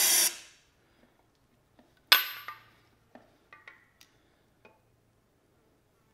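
Aerosol carb cleaner sprayed in short bursts into the carburetor intake of a 1989 Yamaha 9.9 hp four-stroke outboard, used as a starting aid for an engine that will not start. There is a hiss right at the start and another about two seconds in, followed by a few light clicks and taps.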